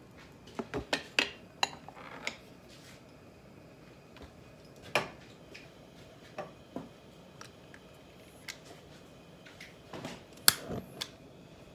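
Scattered clinks and knocks of kitchen dishes and utensils being handled: a quick cluster in the first two seconds, single knocks around five and six seconds in, and a few of the loudest near the end.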